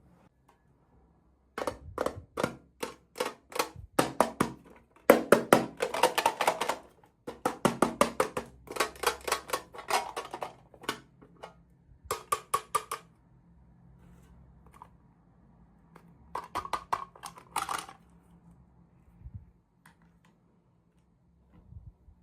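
Small plastic toy pieces and packaging being handled during an unboxing: runs of quick, sharp clicks and clattering, densest in the first half, with a shorter run near the end.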